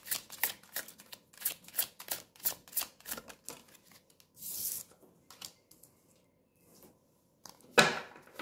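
Tarot deck shuffled by hand, the cards clicking about three times a second, then a card slid off the deck with a brief swish. Near the end the card is laid down on the table with a sharp tap, the loudest sound here.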